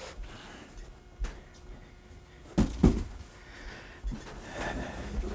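A few dull knocks and faint rustling from an empty cardboard shipping box being handled and carried off, with two stronger knocks close together about two and a half seconds in.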